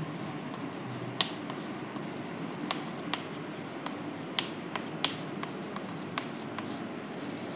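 Chalk writing on a chalkboard: faint scratching with about a dozen sharp, irregular taps as the chalk strikes the board, the loudest about a second in.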